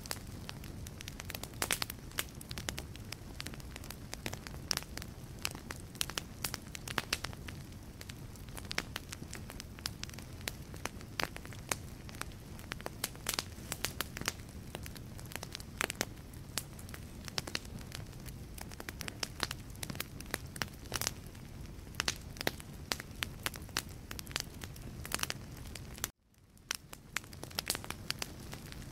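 Wood fire burning in a fireplace: many sharp crackles and pops over a steady low rumble of the flames. Near the end the sound cuts out suddenly and fades back in over about a second.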